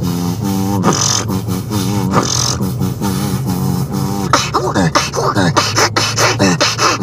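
Beatboxing: vocal percussion of sharp kick and snare clicks laid over a hummed, pitched bass line, turning about four seconds in to quick gliding vocal sweeps.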